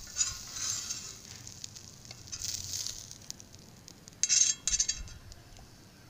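A metal knife scraping in a handful of short strokes, each under a second, with quiet gaps between them, as the cooked egg omelette is cut and pushed about.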